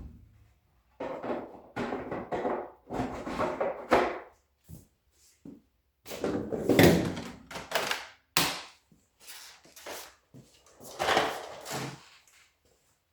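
Cleaning at a clothes dryer's vent and lint filter: irregular bouts of scraping and rustling, with a few knocks and a sharp click about two-thirds of the way through.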